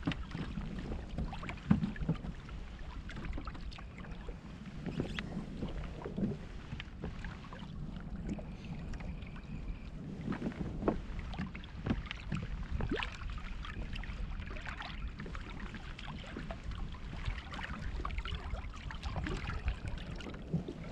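Water lapping against a kayak's hull with wind buffeting the microphone, and scattered light knocks and clicks of gear against the boat.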